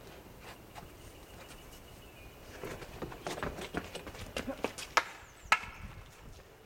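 Wooden stick clacking against a prop sword in a mock fight: a flurry of light knocks and scuffs from about two and a half seconds in, then two sharp, loud strikes about half a second apart.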